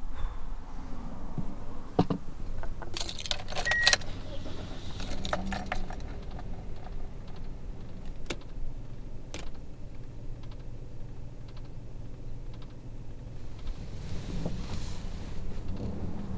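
A bunch of keys jangling in two short bouts a few seconds in, followed by a couple of single sharp clicks, over a low steady rumble inside a car.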